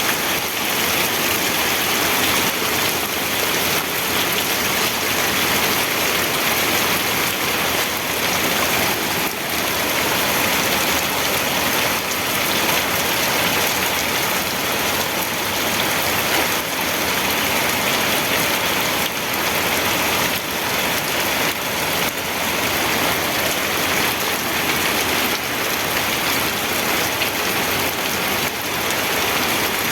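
Steady rain falling on a surface, a dense even patter with no thunder.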